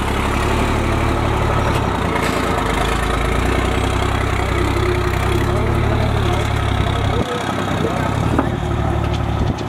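Diesel engine of a loaded Tata Daewoo Novus 25.5 t dump truck running with a low, steady rumble as the truck moves slowly past. About seven seconds in, the low engine sound drops off suddenly.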